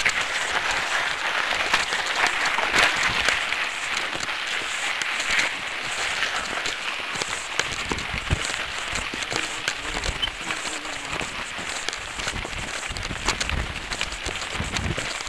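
Mountain bike tyres rolling fast over a loose gravel trail: a continuous crunching rush with many scattered sharp clicks and rattles from stones and the bike.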